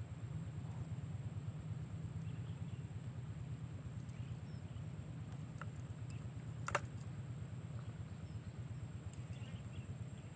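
Open-air pond-side ambience: a steady low rumble under a thin, steady high whine, with a few faint chirps and one sharp click about two-thirds of the way through.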